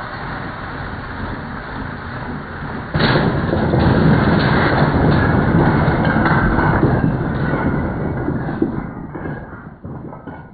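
LEGO 7939 cargo train running along its plastic track with a steady rumble, then, about three seconds in, slamming into a cube of stacked wooden Jenga-style blocks. The blocks crash down and clatter over one another for several seconds, thinning to a few last knocks near the end as they settle.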